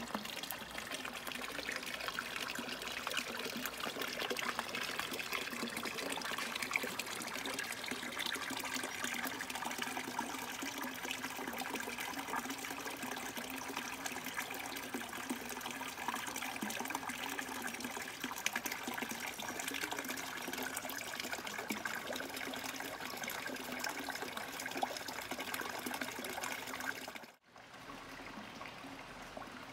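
Shrine spring water trickling and running steadily over stone. It cuts out briefly near the end, after which only a quieter background remains.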